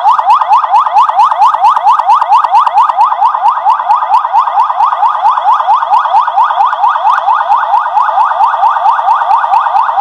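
Electronic emergency-vehicle siren on the 'federal' tone of a Barral model 909 lightbar system, sounding a fast yelp: a rising sweep that snaps back and repeats about six times a second, loud and unbroken.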